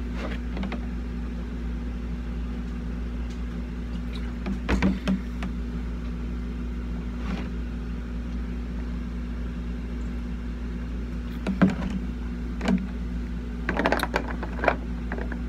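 Air conditioner's steady low hum, with a few short sounds of drinking from a plastic gallon water jug, about five seconds in and again near twelve seconds.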